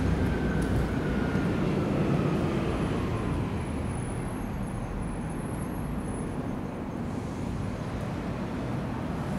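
Steady low rumble of outdoor traffic noise, with a faint whine falling in pitch over the first few seconds.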